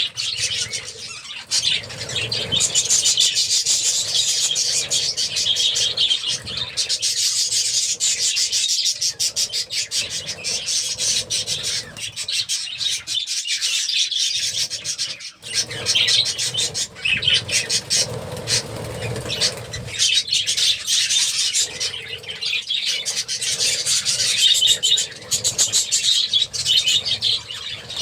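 A flock of budgerigars chattering continuously, many birds calling at once in a dense, rapid warble of chirps and squawks, easing briefly about halfway through.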